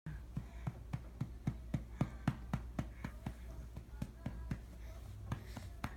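A hand patting a baby's back in a steady rhythm, about four pats a second, to bring up a burp; the pats grow softer after about three seconds.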